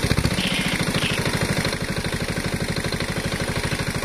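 A small engine running steadily at idle, with a rapid, even thumping beat.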